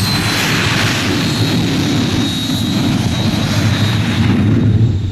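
Racing quad's engine running hard at high revs on a dirt track, a loud steady engine noise with a thin high whine.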